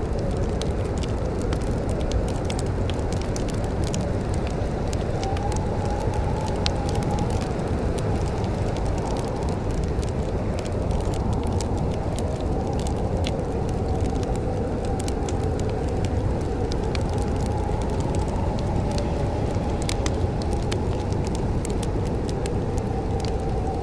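Wood fire crackling in a fireplace, with frequent small sharp pops over a steady low rumble and a faint wavering whistle.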